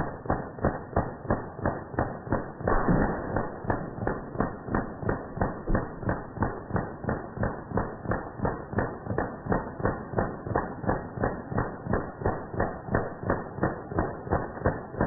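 Full-auto fire from an American 180 submachine gun shooting .22 LR tracers, played back slowed down: evenly spaced dull shots about three a second, with a denser rush of shots about three seconds in.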